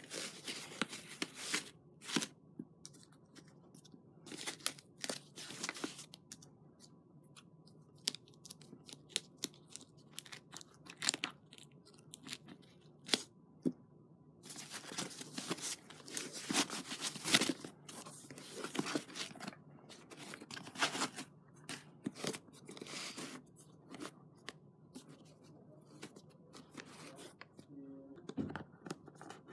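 Plastic mailer bag being torn open and handled, with irregular rustling, crinkling and sharp crackles, busiest in the middle as the box inside is pulled out of the wrapping.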